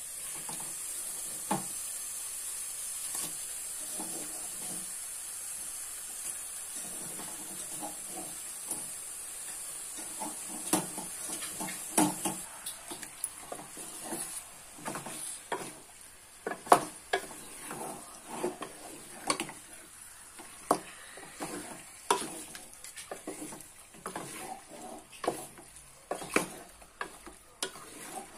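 Raw chicken pieces sizzling in hot oil and ginger-garlic masala paste in a metal pot, stirred with a spatula. From about a third of the way in, the spatula's scrapes and knocks against the pot come thick and fast while the sizzle grows quieter.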